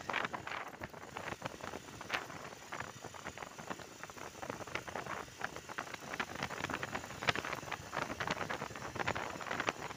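Riding noise from a moving motorcycle: wind rushing and buffeting on the microphone, with irregular crackles and no clear engine note.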